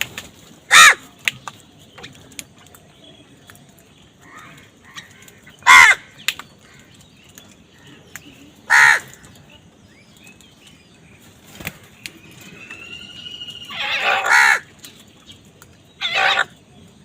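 Crow cawing: five loud, harsh caws several seconds apart, the fourth longer than the others. A thin whistled note leads into the fourth caw.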